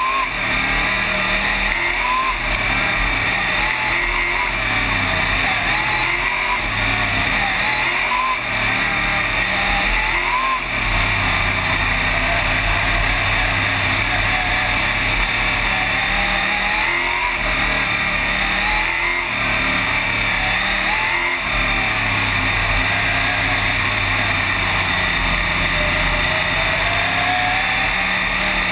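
Race car engine at racing speed, heard from inside the cockpit; the revs climb and drop back over and over as the driver gets on and off the throttle around the track.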